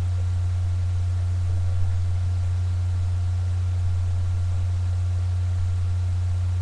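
Steady low hum with a faint hiss, even in level throughout; no distinct sounds stand out above it.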